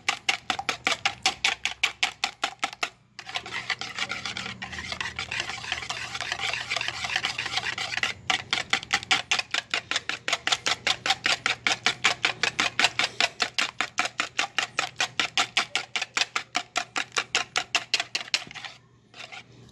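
Wire balloon whisk beating eggs in a plastic bowl: rapid, regular strokes, several a second, each a light splashing scrape of the wires against the bowl. There is a short break about three seconds in, and the beating stops just before the end.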